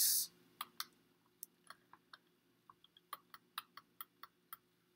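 Computer mouse clicking repeatedly: about fifteen short, sharp clicks at an uneven pace of roughly three a second, as lines are drawn on screen.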